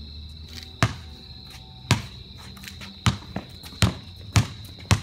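Basketball dribbled on a concrete driveway, about six hard bounces at an uneven pace of roughly one a second.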